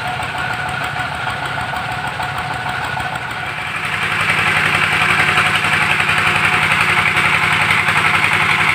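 Engine of a well-drilling rig running steadily with an even low pulsing hum, louder from about four seconds in.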